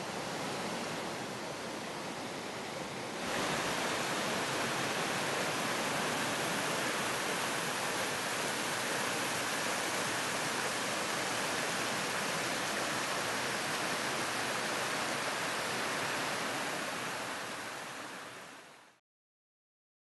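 Waterfall and rocky cascade: a steady rush of white water over rocks. It jumps to a louder, fuller rush about three seconds in, then fades out near the end.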